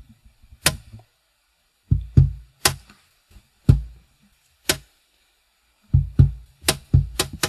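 Music: a sparse drum beat, deep kick-drum thumps alternating with sharp snare cracks about once a second, quickening into a short run of hits near the end, like the intro before a song.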